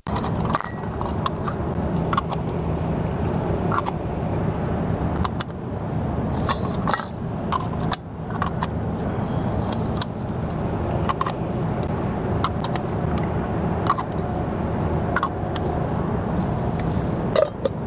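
Light metal clinks and scrapes as a chrome hubcap is fitted over a semi truck's wheel hub and lug nuts, scattered over a steady low hum of shop noise.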